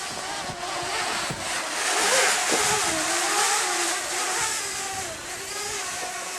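Parrot Bebop quadcopter drone's rotors whining in flight, the pitch wavering up and down as the motors adjust. A rushing noise swells louder about two seconds in.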